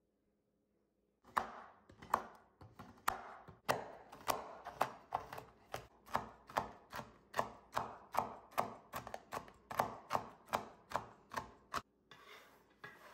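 Chef's knife chopping a bar of dark chocolate on a wooden cutting board: sharp knocks of the blade through the chocolate onto the wood, about two to three a second, with crunching in between. The chopping stops near the end and gives way to a brief scraping.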